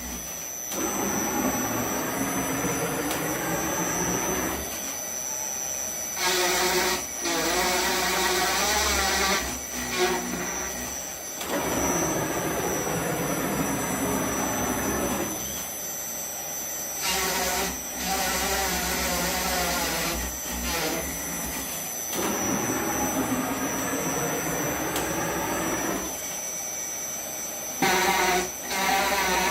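CNC router drilling: the spindle runs with a steady high whine, while the stepper motors sing in tones that rise and fall as the axes move. Louder noisy stretches come as the bit works the material, and the cycle repeats about three times.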